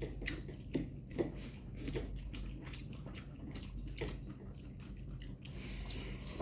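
A person eating noodles: soft wet chewing with a few sharp mouth clicks and smacks, and a short hiss near the end.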